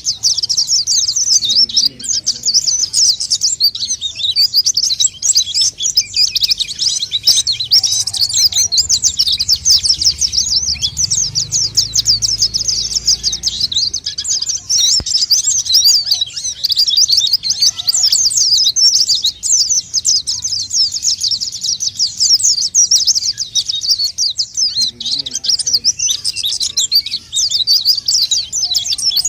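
White-eye (pleci) song: a nonstop stream of fast, high-pitched twittering chirps, the vigorous kind of song played as a lure for wild white-eyes.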